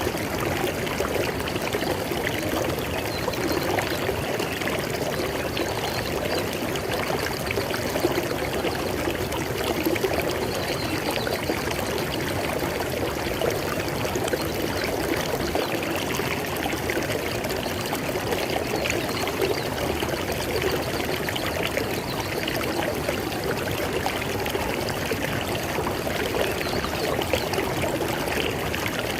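River water flowing over rocks, a steady splashing and gurgling rush.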